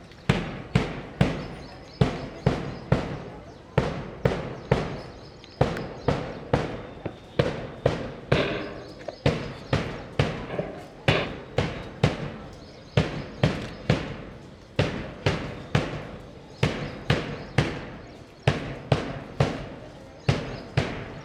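Drum beaten in a steady marching rhythm, about two to three sharp strokes a second with doubled strokes now and then, keeping time for drill exercises.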